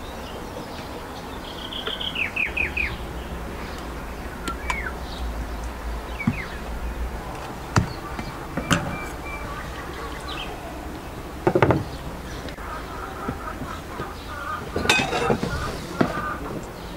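Small birds chirping, with a few sharp knocks and clatters scattered through, the loudest a cluster of knocks about halfway.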